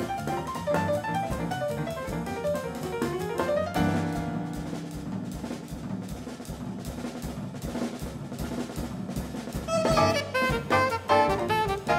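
Live jazz quartet: alto saxophone playing quick melodic lines over piano, double bass and drum kit with cymbals. About four seconds in, the band moves to held lower notes under steady cymbal work, and near the end it grows busier and louder again.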